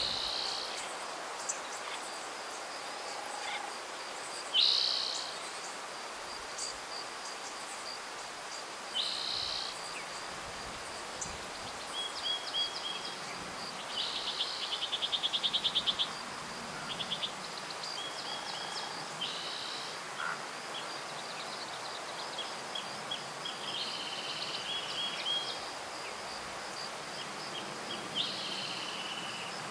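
Wild birds singing in open country. Short downward-slurred phrases repeat every few seconds, a rapid trill runs for about two seconds mid-way, and there are scattered short buzzy notes, all over a thin steady high tone and a soft outdoor hiss.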